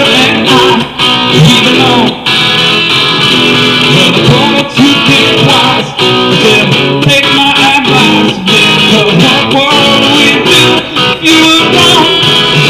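Guitar strummed steadily in a live performance of a song.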